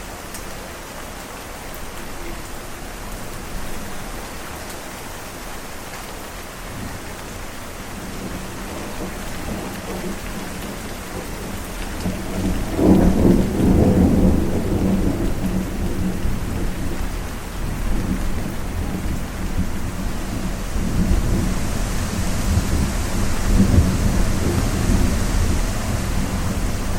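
Thunderstorm: steady rain with rolling thunder, a loud low rumble building about halfway through and more rumbling near the end.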